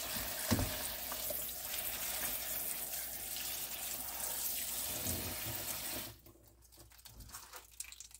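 Kitchen sink spray faucet running onto blanched garlic scapes in a plastic colander as hands toss them under the stream. The water stops suddenly about six seconds in.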